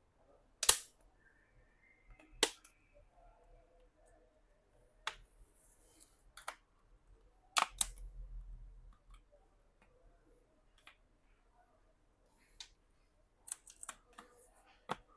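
Plastic clips of a smartphone's back cover snapping loose as a thin pry tool is worked around the seam: scattered single sharp clicks, with a quick cluster near the end.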